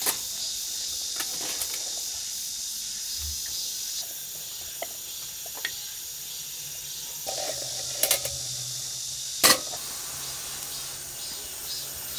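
Wooden utensil scraping and tapping inside a metal camping pot as freshly cooked rice is fluffed, a few light clicks and one louder knock about nine and a half seconds in. A steady high hiss of insects runs underneath.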